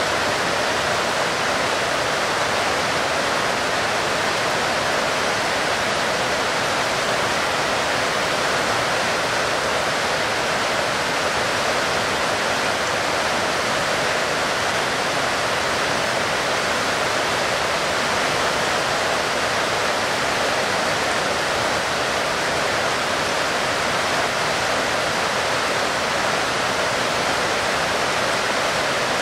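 Heavy rain falling steadily: a dense, even hiss that does not change.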